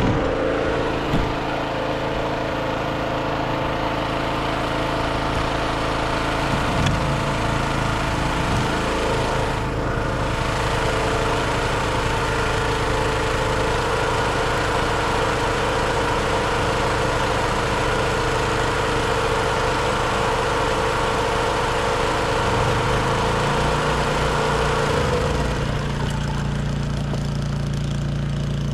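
Portable gasoline generator engine running steadily; its note changes near the end.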